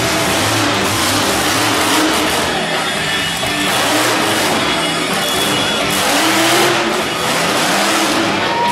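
Monster truck engine revving hard, loud and continuous, as the truck drives over crushed cars and spins, with music playing underneath.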